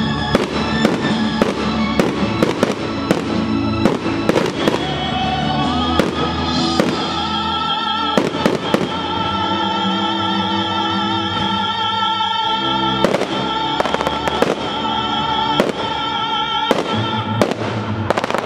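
Fireworks display: a rapid, irregular string of launch thumps, bursts and crackles from aerial shells and rising comets, over music with long held notes.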